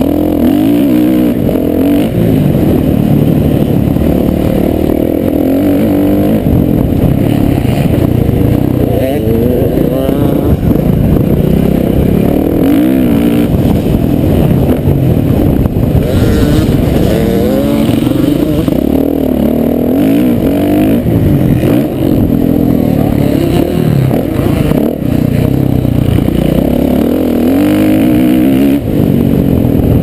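Motocross dirt bike engine being ridden hard, its pitch rising and falling again and again as the throttle is opened and closed through the gears and corners.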